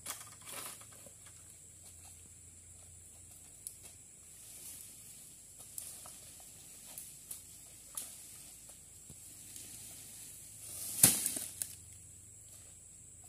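Oil palm harvesting with a long pole sickle: faint rustling and scattered light clicks, then about eleven seconds in a short rushing build-up and one loud crash, as cut palm material falls through the fronds and hits the ground.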